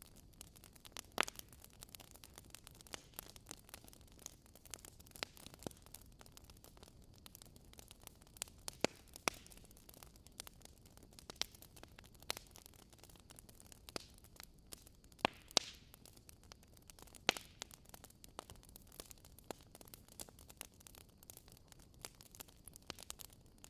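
Wood fire crackling in a fireplace: irregular sharp snaps and pops, a few louder ones, over a soft steady hiss.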